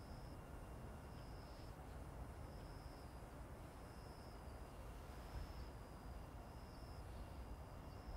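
Faint outdoor background: a low rumble with a short, high-pitched chirp that repeats about every second and a bit.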